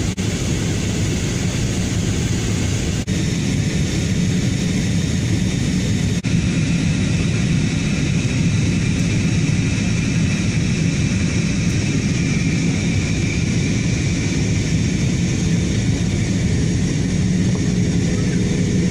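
Steady roar of a jet airliner in flight heard inside the passenger cabin: an even rush of engine and air noise, strongest in the low end. It dips for an instant about three seconds in and again about six seconds in.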